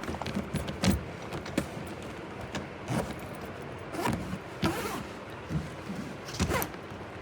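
Travelling trolley bag and its lock being handled: a scattered series of short clicks and knocks, with a couple of brief rustling scrapes.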